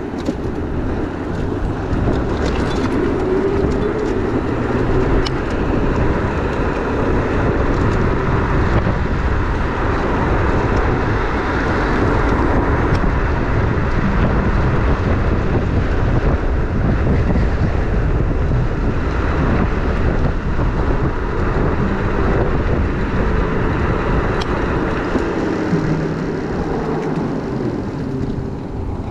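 Steady wind rushing over a body-worn action camera's microphone while riding an Onyx RCR electric bike at speed, mixed with the rumble of its tyres on the path.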